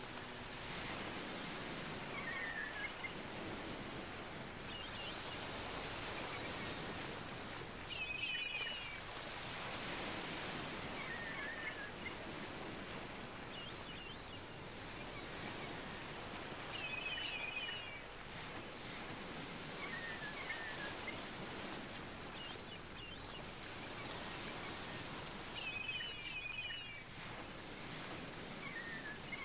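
Ambient nature recording of birds calling over a steady hiss, the same short chirping phrases returning about every nine seconds.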